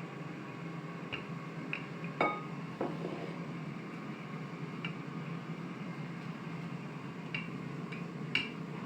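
Scattered light clicks and knocks while pizza dough is rolled out on a tabletop, one of them with a brief ring, over a steady low hum.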